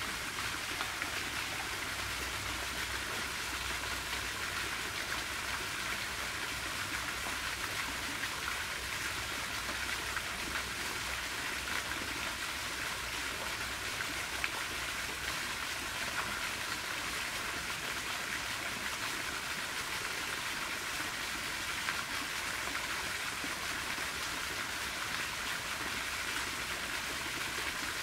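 Fountain jets splashing into a pond: a steady hiss of falling water.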